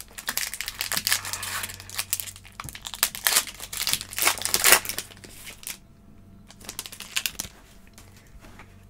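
Foil trading-card pack wrapper crinkling and crumpling as it is torn open. The crinkling is densest for the first five seconds or so, then dies down to a few scattered crinkles.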